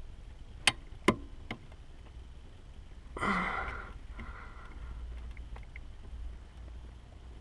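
Three sharp plastic clicks, a few tenths of a second apart, as fingers work the retaining tabs of a Volvo V70 brake light switch, then a short breathy exhale of effort about three seconds in.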